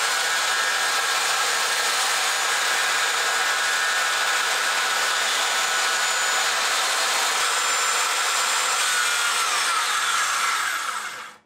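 Corded circular saw ripping a sheet of plywood lengthwise along a straight-edge guide, the blade cutting steadily through the wood. Near the end the saw is released and its motor winds down with a falling whine.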